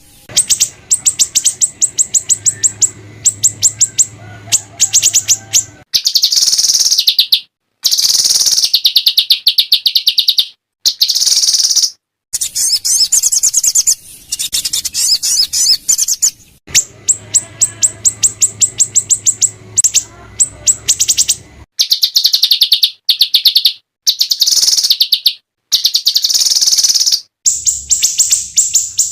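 Small songbirds singing high-pitched, fast rattling trills and harsh chattering phrases ('tembakan kasar'), mixed with clearer notes. The birdsong comes in repeated, edited segments that cut off abruptly.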